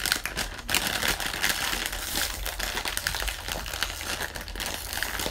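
Foil chip bag crinkling steadily as hands grip its top and pull it open.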